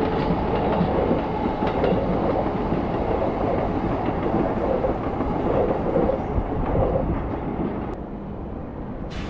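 Yamanote Line commuter train (E235 series) running past on the tracks, its wheels clattering over the rail joints. The rumble fades away about seven seconds in as the train leaves.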